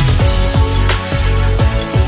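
Background music with an electronic drum beat and falling bass-drum hits about twice a second, over held synth notes.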